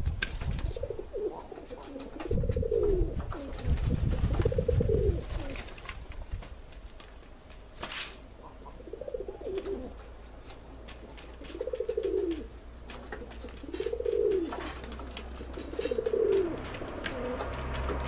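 Pigeons cooing, about seven separate coos, each rising and then falling in pitch. A low rumble runs under the first few coos.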